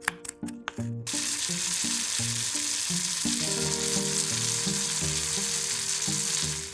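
Food frying in a hot pan: a steady, dense sizzle that starts about a second in, after a few quick sharp clicks.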